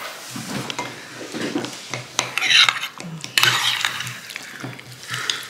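A metal serving spoon scooping and scraping through a cheese-topped potato bake in a ceramic baking dish, with light clinks of the spoon against the dish.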